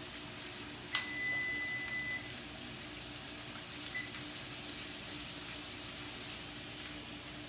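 Steaks sizzling steadily in a hot oiled skillet. About a second in, a click and a single electronic timer beep lasting about a second; a short faint beep comes near four seconds.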